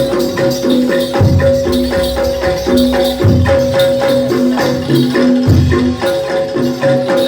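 Live East Javanese jaranan gamelan music: metallophones struck in a quick, steady rhythm over held tones, with a deep drum beat about every two seconds.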